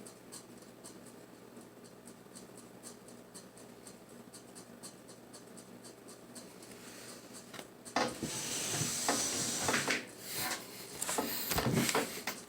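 Faint room tone with a few small ticks, then about eight seconds in a burst of rubbing and rustling, followed by a few scrapes and light knocks as objects are handled on a table.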